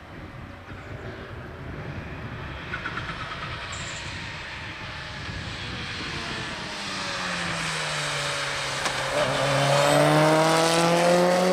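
Mitsubishi Lancer Evolution rally car's turbocharged four-cylinder engine approaching and passing close by, growing louder over the hiss of tyres on a wet track. The engine note dips about nine seconds in, then climbs again as the car goes by, and the sound cuts off suddenly at the end.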